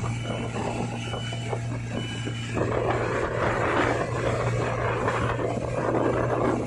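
Mercury outboard motor running steadily at speed with a low hum, under the rush of the churning wake; the rushing grows louder about two and a half seconds in.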